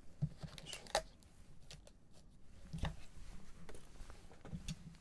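2020-21 Panini Chronicles foil card packs rustling and tapping together as they are lifted out of their cardboard box and stacked, with a few sharp clicks.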